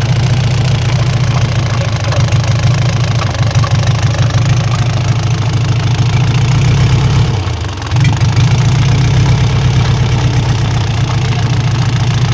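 Isuzu 4BC2 four-cylinder diesel engine running with a rapid knocking (lagutok), which turns out to come from inside the fuel injection pump rather than inside the engine. The sound dips briefly about seven and a half seconds in, then picks up again.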